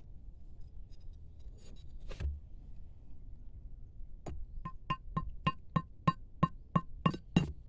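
Rapid metal-on-metal strikes starting a few seconds in, about three a second, each with a short ring: a machete blade hammering the top of a metal pipe to drive a peg into the ground.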